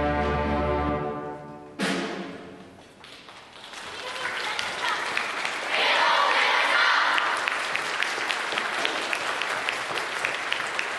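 A school wind band's final held chord dying away, ended by a sharp crash about two seconds in that rings out. Audience applause then builds and continues steadily.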